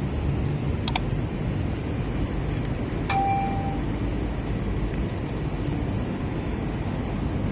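Steady low background rumble, with a quick double click about a second in and a short metallic ding about three seconds in that rings briefly at one pitch.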